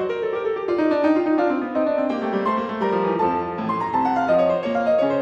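Background piano music with quick running notes, including a run falling in pitch over about the first two seconds.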